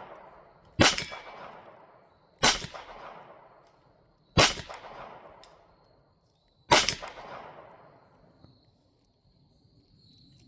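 Four shots from a Taurus TX22 Competition .22 LR pistol, spaced about one and a half to two seconds apart. Each shot is followed by a fading clang from the hanging steel target being hit.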